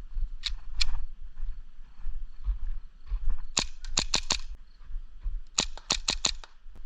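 Sharp mechanical clicks from a Hi-Capa airsoft pistol. Two single clicks come near the start, then a quick run of about five about three and a half seconds in, and another quick run of about seven near the end.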